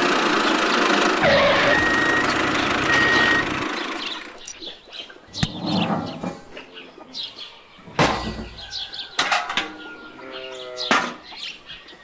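A small toy-tractor motor running loudly for about four seconds, then stopping. After it, scattered clicks and knocks of small toy parts being handled, with birds chirping.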